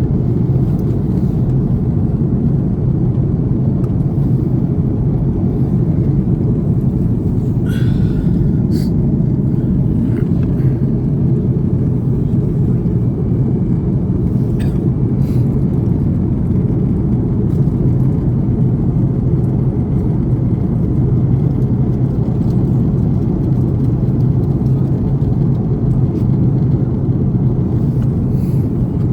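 Steady, deep cabin noise of an Airbus A330 in flight: the even sound of the engines and airflow heard from inside the cabin. A few faint clicks come about a third and half of the way through.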